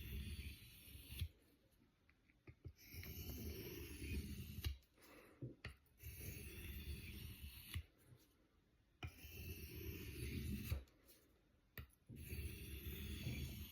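Knife blade scraping across a natural sharpening stone, in runs of strokes about two seconds long separated by short pauses.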